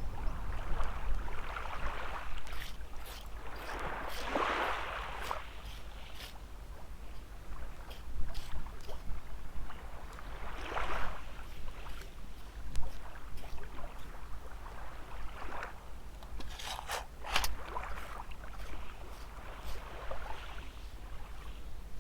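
Small waves washing in on the shore, each swell rising and falling every few seconds, with a low wind rumble on the microphone and scattered sharp clicks.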